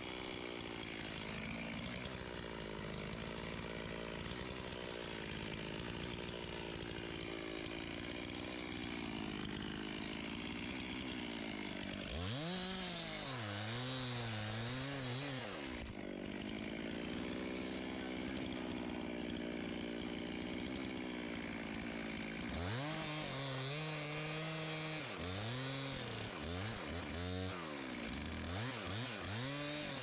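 Chainsaw engine running steadily with a slightly wavering pitch, then revved up and down in quick swells from about twelve seconds in to about sixteen, and again from about twenty-two seconds to the end.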